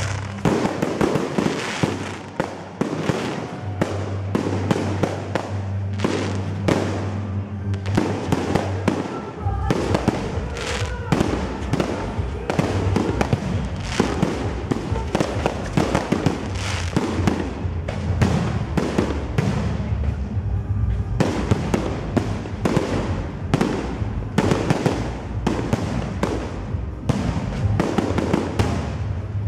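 Fireworks display: aerial shells bursting in quick, continuous succession, many sharp bangs a second, with music playing underneath.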